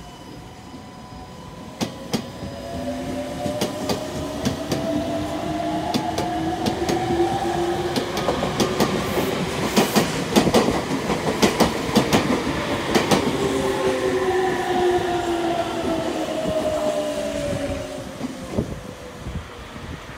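Red Meitetsu electric trains passing each other at a station, with wheels clacking rapidly over rail joints. One train's motor whine rises as it accelerates away, and later another's whine falls as it brakes.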